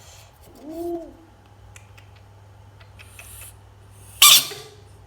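A frog calling: a short, low hoot that rises and falls about a second in, then a brief, loud, shrill scream a little after four seconds.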